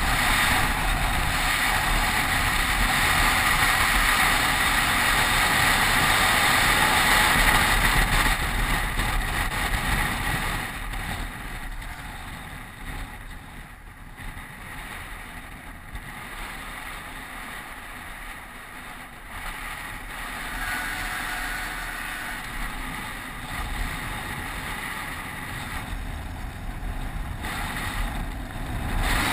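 Wind rushing over a helmet-mounted camera's microphone, with the roll of mountain-bike tyres on asphalt. Loud for the first ten seconds or so, quieter through the middle, then picking up again near the end.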